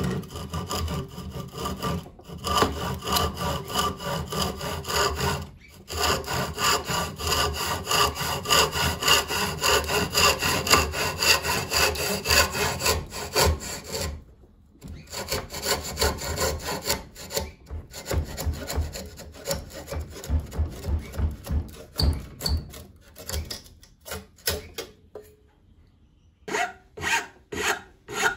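Hand saw cutting through a round wooden dowel in quick, steady back-and-forth strokes, with a few short pauses and lighter strokes as the cut nears its end. Near the end, slower separate strokes of a metal file smoothing the freshly cut end grain.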